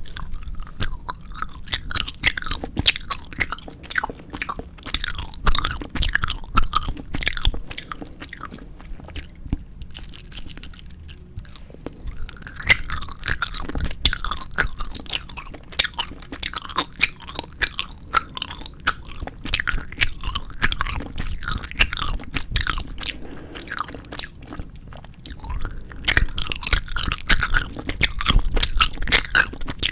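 Close-miked chewing of 4D jelly gummy candy: a dense run of small wet clicks and crackles from the mouth, easing off briefly about ten seconds in and again a little before the end.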